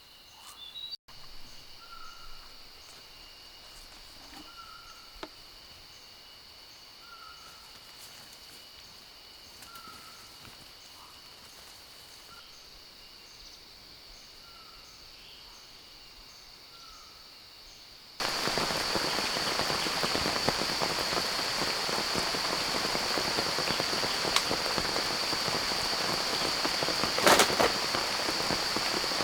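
Quiet rainforest ambience: a steady high insect drone with a short call repeating about every second and a half. About two-thirds of the way through it switches abruptly to heavy rain falling steadily, with one sharp crack near the end.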